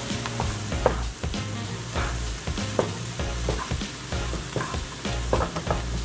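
Onions and mushrooms sizzling as they fry in a pan, with a utensil stirring and knocking against the pan many times.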